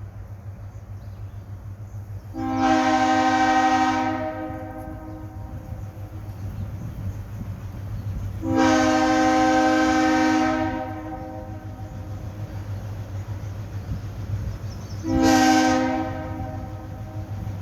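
Diesel locomotive air horn sounding the grade-crossing signal: two long blasts and then a short one, each a chord of several steady tones. A steady low hum from the slow-moving locomotive runs underneath.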